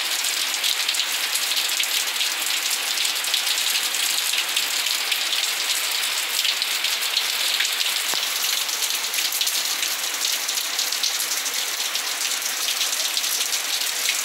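Heavy rain falling steadily, a dense even hiss made up of countless fine drop ticks as it hits a balcony floor and railing.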